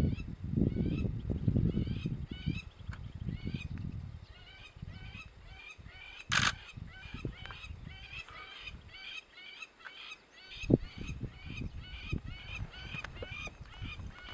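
Birds calling over and over in a fast series of short calls, several a second. Underneath is a low rumbling noise in the first few seconds and again near the end, with one brief loud hiss about six seconds in.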